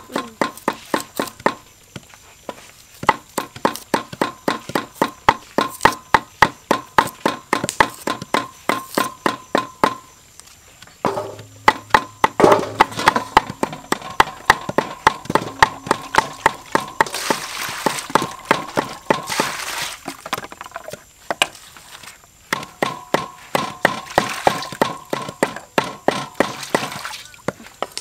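A cleaver chops rapidly on a thick round wooden chopping block, mincing red chillies. The strokes come several a second in long runs, with brief pauses about two, ten and twenty-one seconds in.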